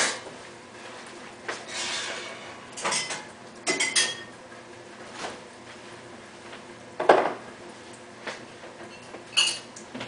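Dishes and wire dish racks clattering and clinking as they are handled and set down. There are several separate clatters, the loudest about seven seconds in, and some ring briefly like china or glass.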